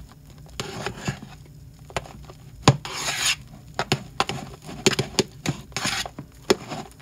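A spatula stirring thick shaving foam in a clear mixing bowl: irregular clicks and taps as it knocks the bowl's side, with scraping swishes through the foam, a longer swish about three seconds in and another near six seconds.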